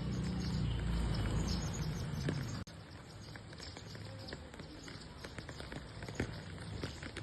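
House sparrows at a feeder: scattered short chirps and quick light taps. A low rumble underlies the first two and a half seconds and then stops abruptly.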